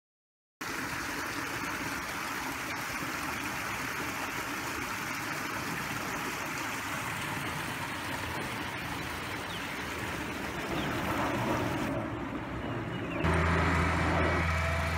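A steady, even noisy rush with no clear pitch, then about thirteen seconds in it switches abruptly to a Cat compact track loader's diesel engine running with a steady low hum.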